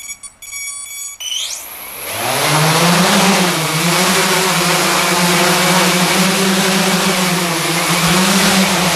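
Large electric hexacopter with Castle Creations Phoenix Edge 100 speed controllers: a quick run of short beeps as it arms, a brief rising whine as the six motors spin up, then the propellers build to a loud steady drone, the pitch wavering slightly as it lifts off and hovers.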